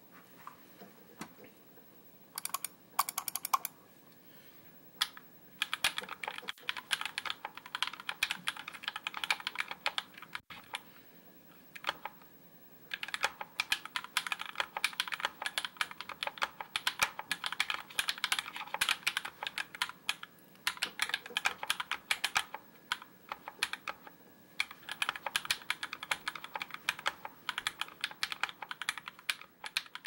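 Typing on a custom Canoe Gen 2 mechanical keyboard with lubed 67 g Tangerine linear switches on an aluminium plate and GMK keycaps. A few separate keystrokes come about three seconds in, then fast runs of keystrokes broken by short pauses.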